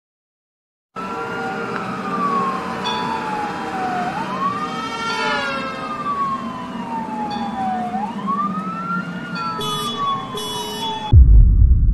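Emergency-vehicle siren wailing: the pitch falls slowly and rises quickly, twice over, with a second siren sweeping down briefly about halfway. About a second before the end a sudden loud low rumble cuts in.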